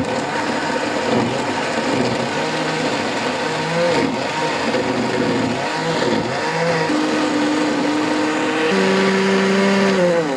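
Bosch blender motor running at speed, pureeing soaked dried chilies, garlic and a little water into paste. The motor note wavers while chunks churn in the jug, then settles into a steady hum that steps higher near the end as the paste turns smooth.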